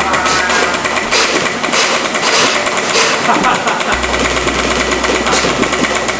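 Nerf Rival Prometheus motorized blaster firing full-auto: its flywheel motors spinning and a rapid, continuous stream of foam balls being shot out.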